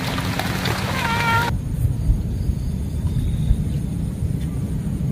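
Rain falling on water with a cat meowing once, about a second in. Both cut off abruptly at about one and a half seconds, leaving only a low steady rumble.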